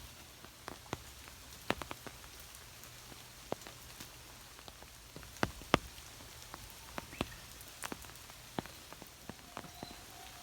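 Rain: a steady patter with heavy raindrops striking close by in irregular sharp ticks, two of them louder a little past halfway.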